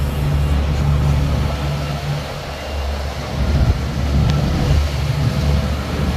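Twin outboard motors running steadily with a low drone, over the rush of the boat's wake and wind.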